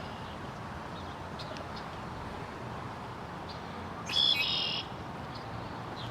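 Birds chirping: a few faint short chirps, then one louder half-second call about four seconds in, over steady outdoor background noise.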